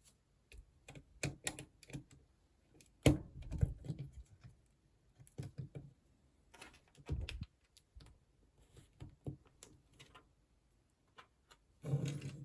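Small plastic building-block pieces being handled, rattled and pressed together, giving irregular bursts of light clicks, with a louder cluster about three seconds in and again near the end.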